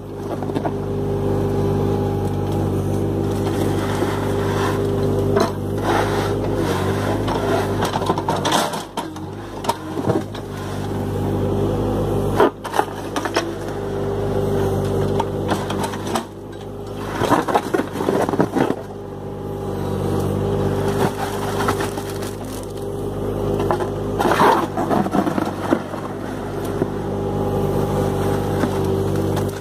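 Engine of a small John Deere excavator running steadily while its bucket churns and scrapes through wet concrete in a wooden mixing bin, with gritty crunching and a few sharp knocks.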